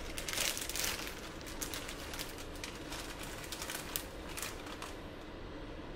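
Dry spaghetti and its plastic packaging being handled, a run of light crinkling rustles and clicks that is busiest in the first second and dies down near the end.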